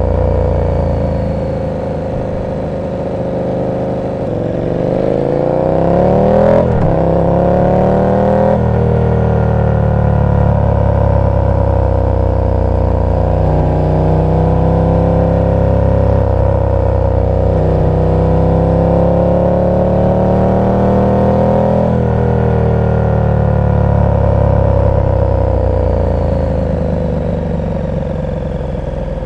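KTM 1290 Super Duke R's V-twin through an aftermarket exhaust. Several seconds in it revs up hard through two quick upshifts, then runs at road speed with the revs rising and falling gently, easing off near the end.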